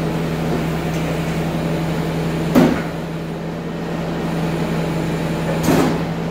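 Bobcat compact track loader's diesel engine idling steadily, with two sharp knocks about three seconds apart from the pickup bed.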